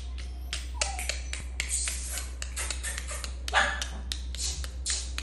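A quick series of sharp clicks, about four a second, with a short falling squeak about a second in and a louder brief rasping noise about three and a half seconds in.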